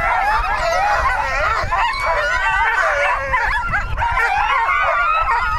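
A team of harnessed racing sled dogs barking, yipping and howling together in a dense, overlapping chorus, excited and eager to run while held at the start line before takeoff.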